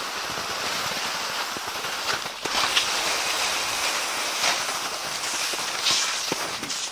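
Skis gliding over crusted snow in a steady hiss, with a few sharp crunches from ski poles being planted.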